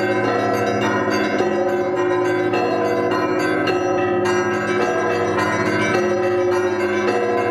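Russian Orthodox monastery bells rung in a festal Easter-week peal: many bells of different pitches struck together in rapid, continuous patterns over the sustained hum of the larger bells.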